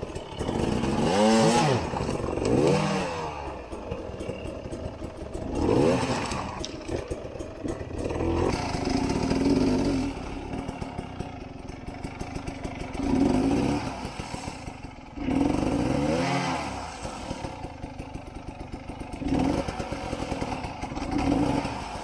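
Two-stroke enduro dirt bike engines of a Sherco 250 SER and a KTM 300 TPI revving in repeated short bursts, each rev rising and falling in pitch, with a lower steady engine note between bursts as the bikes climb over rocks.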